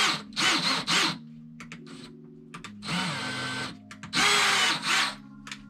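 Power drill driving a wood screw into a wall stud without a pilot hole, run in bursts: three short pulls of the trigger in the first second, then two longer runs about three and four seconds in.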